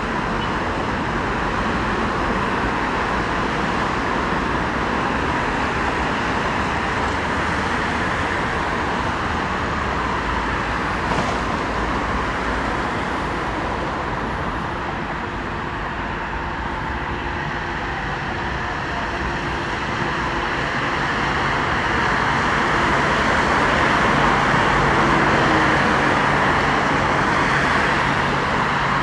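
Steady rushing vehicle noise that swells after about twenty seconds.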